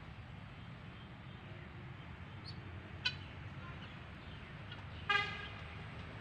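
A single short honk about five seconds in, over a steady low outdoor hum, with a faint click about three seconds in.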